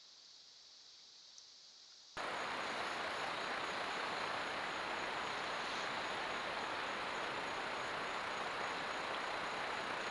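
Faint hiss that switches abruptly, about two seconds in, to a loud, steady, even rushing noise of outdoor ambience picked up by a trail camera's microphone.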